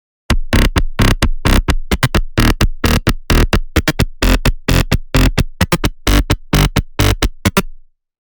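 Electronic bass loop: a fast, punchy synthesized beat of short hits with deep bass. It starts abruptly and cuts off shortly before the end.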